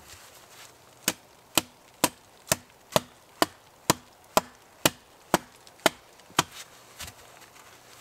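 Hatchet chopping into the end of a wooden pole: about a dozen sharp, even strikes, about two a second, with a lighter last blow near the end.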